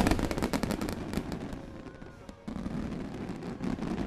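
Fireworks crackling in a rapid stream of sharp pops that thins out about halfway through, followed by a lower, steadier rumble.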